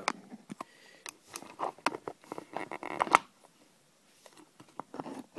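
Handling noise: scattered small clicks, taps and rustles, with a cluster of rustling and the loudest click about three seconds in.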